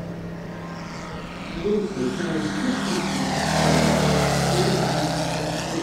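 A 250cc Moki radial engine in a large-scale RC Sukhoi SU-31 runs as the plane flies past. It grows louder to a peak about four seconds in, then eases off near the end.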